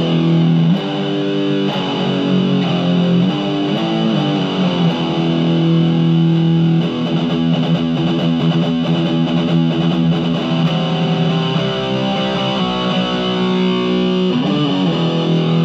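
Electric guitar played through a Marshall MG15MSII micro stack, still on its stock speakers, on the overdrive channel with the gain at about nine o'clock: distorted chords and notes played continuously, each held for a second or two.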